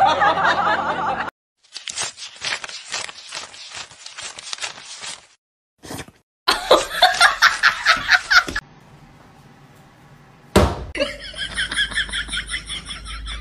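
Several separate bursts of human laughter, quick rhythmic 'ha-ha' pulses, broken by short silences, with a sharp click just past the middle.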